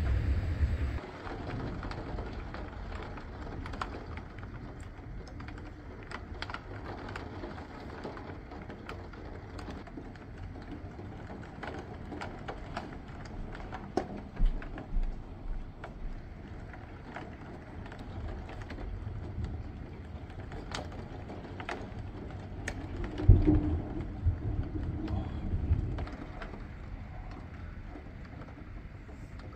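Thunderstorm rain, with the steady wash of the downpour and irregular sharp ticks of raindrops. A low rumble comes at the start, and a heavier low rumble with a thump about 23 seconds in.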